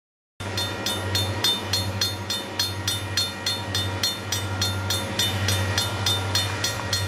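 Grade-crossing warning bell ringing in quick, evenly spaced strokes, about four a second, over the low steady rumble of an approaching diesel freight locomotive. The sound drops out briefly at the very start.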